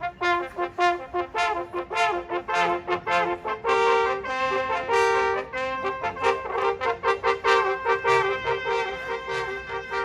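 Brass hunting horns playing a traditional Austrian hunting fanfare: quick repeated notes, then longer held chords in the middle, then quicker notes again, cutting off at the end.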